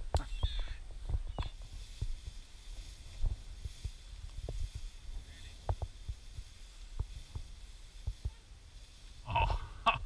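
Footsteps of a person walking through tall dry grass: irregular low thuds with faint brushing of the stalks.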